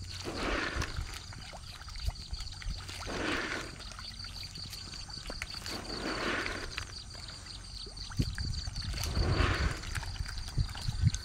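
Water sloshing in regular swells about every three seconds, over a steady high-pitched whine and a low rumble.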